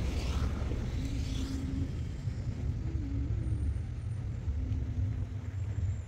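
Steady low rumble of outdoor city background, with a faint hum that comes and goes and a couple of soft swishes in the first two seconds.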